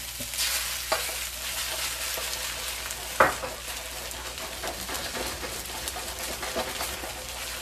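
Fried rice sizzling in a hot wok as an egg is poured in and scrambled through it with wooden spatulas, with steady frying hiss and scraping. A sharp knock comes about three seconds in.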